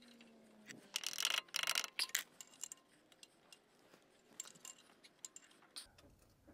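Light clicking and scraping of a tool picking at the broken plastic head of a seized ABS wheel speed sensor inside its bore in the wheel hub. A dense run of scrapes comes about a second in, then scattered light ticks near the end.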